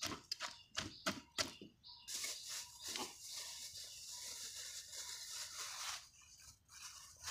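Wooden pestle pounding in a large wooden mortar, a quick run of thuds over the first two seconds, then a steady scraping rustle for about four seconds.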